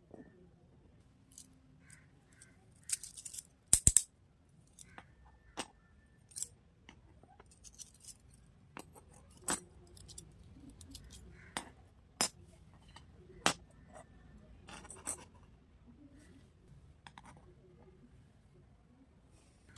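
Small miniature plastic kitchen toy pieces being handled, giving scattered sharp clicks and taps. The loudest is a quick double click about four seconds in.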